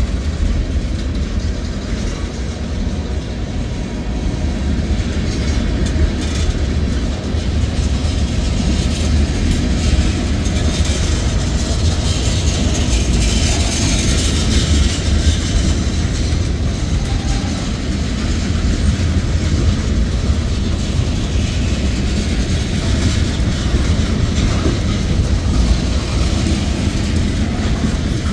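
Freight train cars, mostly tank cars, rolling past close by: a steady, loud rumble of steel wheels on the rails with clacks of the wheels over the track.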